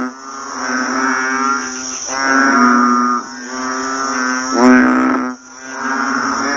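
A chorus of frogs calling. Loud, droning, pitched calls lasting a second or two each swell and overlap, over a steady high-pitched insect buzz.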